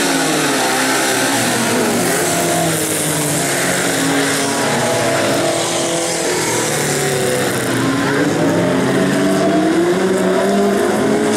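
Several bilcross race cars' engines running hard at once, revving up and dropping back as they accelerate and lift off around the track.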